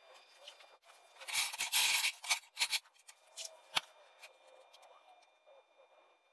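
Oxy-acetylene gas-welding torch working steel bodywork: a faint steady hiss, a burst of crackling about a second in, and several sharp pops over the next two seconds.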